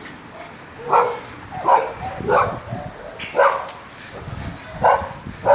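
A dog barking repeatedly, about six short barks at uneven intervals.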